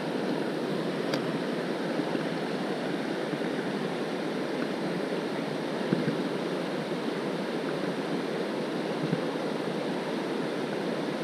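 Steady rush of the Little North Fork Santiam River's flowing water, with a couple of faint knocks about midway and near the end.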